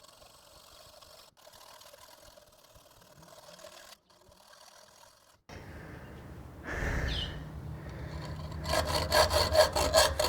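Hacksaw cutting with fast, short rasping strokes, about six a second, starting near the end over a low hum that comes in about halfway through.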